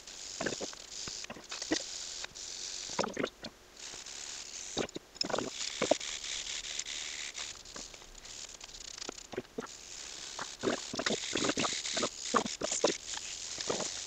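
Hand wire brushes scrubbing rust off steel 3D-printer Z-axis rods: uneven scratchy strokes mixed with many small clicks and knocks of metal.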